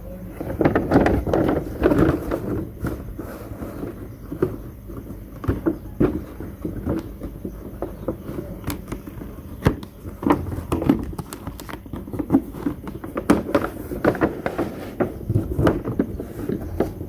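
Small plastic toy kitchen pieces and their packaging handled: irregular clicks, taps and rustling.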